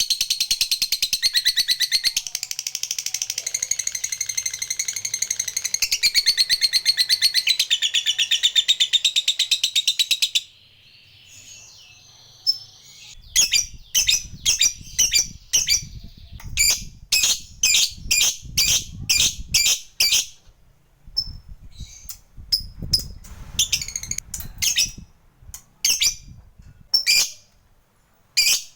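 Lovebird giving a long, rapid chattering trill (the 'ngekek' call) that breaks off about ten seconds in. After a short pause come separate sharp chirps, one or two a second.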